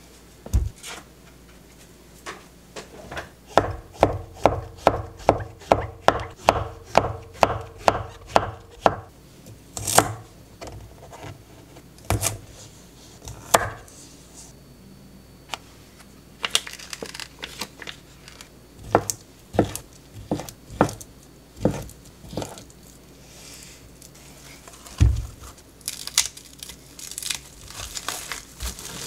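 Knife chopping on a wooden cutting board: a run of even strokes about three a second, then scattered single cuts. Near the end comes a crinkly tearing as outer leaves are pulled off a head of cabbage.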